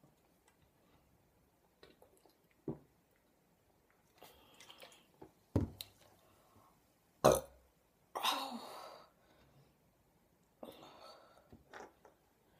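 A woman burping several times at irregular intervals: some short, sharp burps and some longer, rougher ones, the loudest about seven seconds in. The burps are brought up by gulping carbonated cola.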